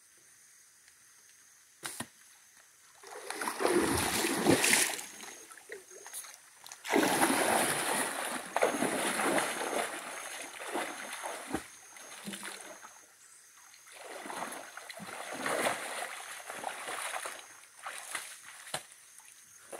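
A single sharp snap of a slingshot shot about two seconds in, then loud splashing as a person wades fast through shallow river water, in several long spells.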